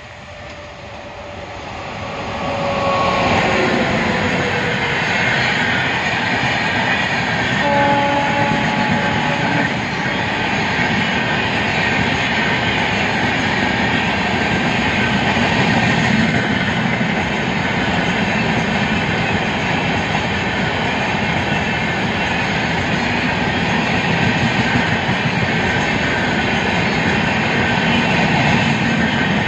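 Rajdhani Express hauled by a WAP-7 electric locomotive passing at speed. The locomotive's horn sounds as it closes in, growing louder and dropping in pitch as it goes by, and gives a second short blast about eight seconds in. Then comes the steady rumble and wheel clatter of the long rake of coaches running past.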